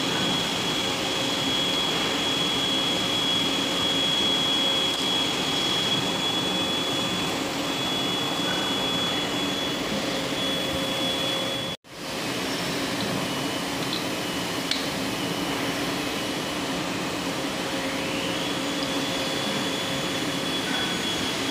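Steady factory machinery drone with a high, thin whine over it. The drone cuts out for an instant about halfway through, and the whine comes back rising in pitch a few seconds before the end.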